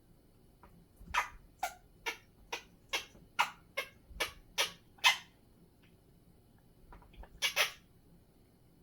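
African grey parrot making a rapid series of short, sharp, noisy calls, about ten at roughly two a second, then a pause and two more close together near the end.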